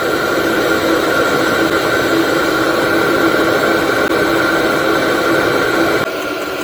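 MaXpeedingrods 5 kW 12 V diesel air heater running at speed after start-up: its fan blowing a steady rush of hot air with a steady hum. The level drops suddenly about six seconds in.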